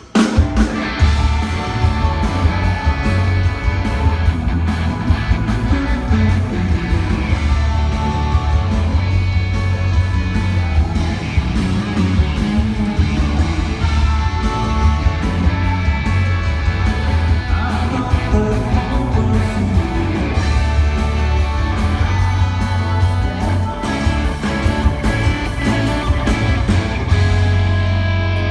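Rock band playing loudly on stage, vamping over a song's chorus during a sound check. Electric guitar stands out over a heavy bass low end. The music starts abruptly.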